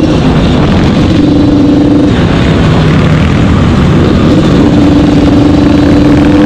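Motorcycle engines running at fairly steady revs while riding, with rushing wind noise on the microphone. The engine note drops back for about two seconds in the middle, then returns and climbs slightly near the end.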